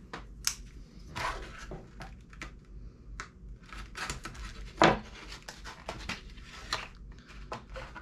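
Plastic bag of soft-plastic fishing baits being cut open with a knife and handled: irregular crinkling rustles and small clicks, with a sharper snap about five seconds in.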